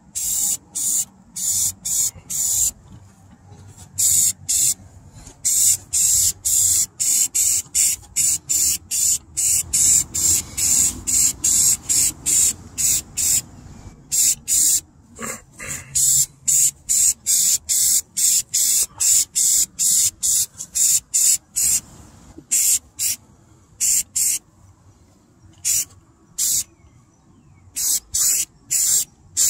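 Aerosol spray can of rust reformer spraying in quick short bursts, roughly two a second, with a few brief pauses.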